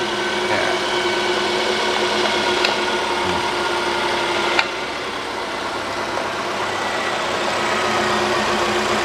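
Nissan Almera's petrol engine idling steadily, just jump-started on a dead battery and now running on its alternator. A single sharp click about four and a half seconds in.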